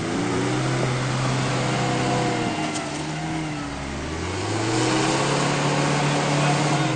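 Mitsubishi Pajero 2's engine revving hard in a mud bog. The pitch sags a little about two seconds in and climbs again from about four seconds, over a steady hiss of water and mud sprayed up by the spinning wheels.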